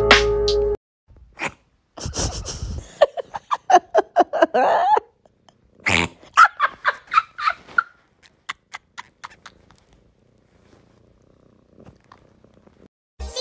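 A domestic cat making a rapid string of short, clipped calls that sound like laughing, in two runs a second apart, the second fading out.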